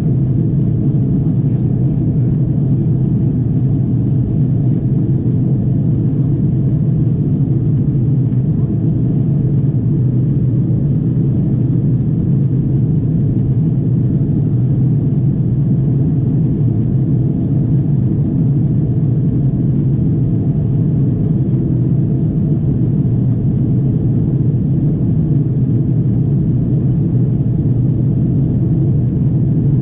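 Steady low drone inside the passenger cabin of an Airbus A330-300 in flight: engine and airflow noise, even and unbroken.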